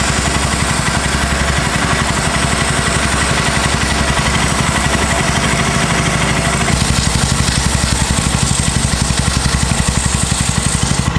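Royal Enfield Himalayan's single-cylinder engine idling steadily, with the hiss of an aerosol chain cleaner being sprayed onto the drive chain and sprockets.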